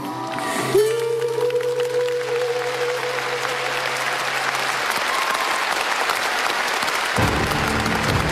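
Studio audience applauding as a live song with acoustic guitar ends. The band's last held chord rings for about four seconds under the applause and then dies away.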